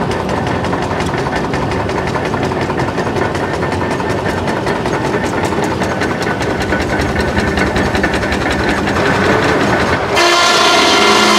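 Machinery running with a rapid, even clatter. About a second before the end the sound switches abruptly to a steadier running sound with several held whining tones.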